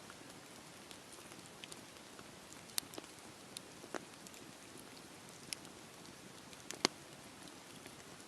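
Campfire burning: a soft steady hiss with scattered sharp crackles and pops of burning wood, the loudest pop a little before the seven-second mark.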